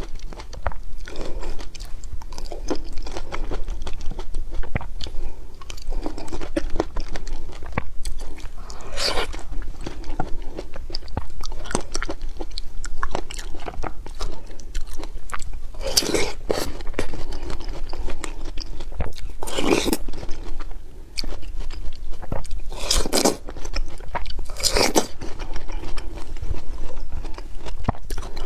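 Close-miked eating of blueberries on their stems: steady chewing with several louder, sharp bites, more of them in the second half, played back sped up.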